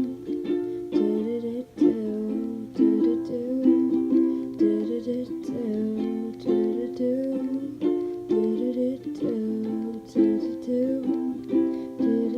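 Ukulele strumming chords in a steady rhythm, an instrumental break in an original song.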